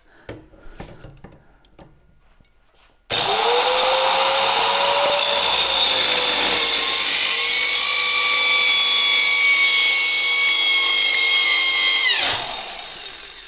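Mini plunge circular saw starts about three seconds in, its whine rising quickly as it spins up, then runs steadily while cutting a plastic slam panel, the pitch sagging a little under load. Near the end it stops and winds down.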